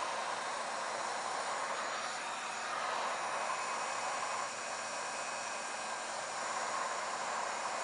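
Hot-air paint-stripping heat gun running steadily: a continuous blowing hiss as it blasts air through the holes in the bottom of a bee smoker to light the cedar fuel.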